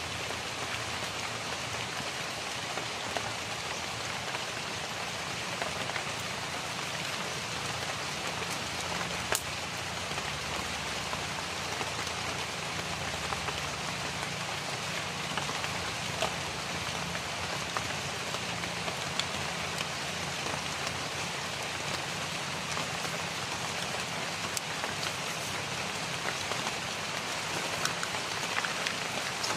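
Steady rain falling, an even hiss with a few faint scattered drop ticks.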